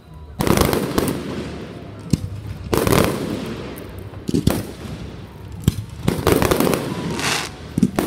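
Aerial firework shells bursting overhead: several loud booms, each trailing off over a second or so, with sharp single cracks in between.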